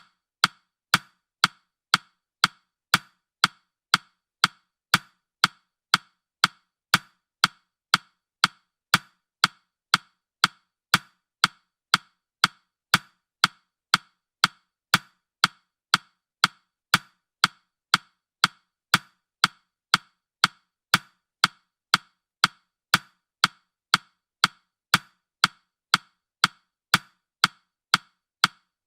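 Countdown timer's ticking sound effect: sharp, evenly spaced ticks, about two a second.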